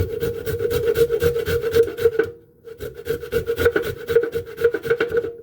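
Fresh garlic and ginger being rubbed rapidly up and down a stand-up metal grater, fast rasping strokes with a short pause about two and a half seconds in.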